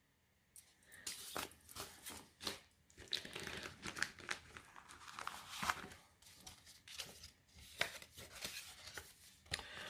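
Paper and plastic crinkling and rustling as small craft items are handled and unwrapped, with scattered small clicks and taps, starting about half a second in.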